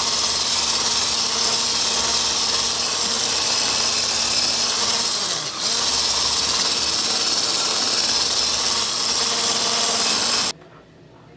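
Electric hand mixer running steadily, its beaters whirring through a thick, creamy cake batter as an egg is beaten into it. The sound dips briefly about halfway through, then the mixer is switched off about a second before the end.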